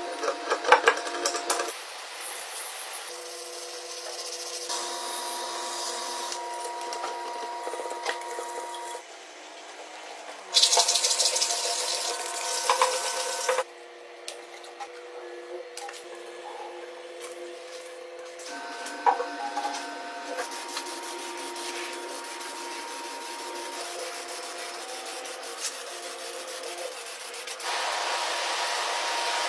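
Hand work on aluminium motorcycle engine castings: a pick scraping off old gasket residue with scratchy clicks in the first couple of seconds, then rubbing and sanding. About ten seconds in comes a louder hissing or scrubbing noise lasting about three seconds.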